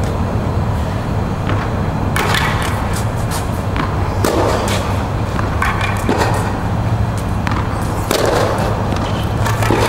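Tennis ball struck with a racket several times, a sharp hit about every two seconds, with ball bounces in between, over a steady low hum.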